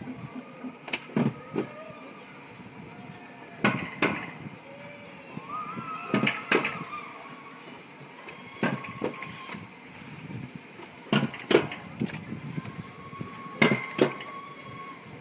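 Alpine coaster sled running along its steel rails, with sharp clacks in pairs about every two and a half seconds over a steady rumble, and a faint wheel whine that wavers in pitch.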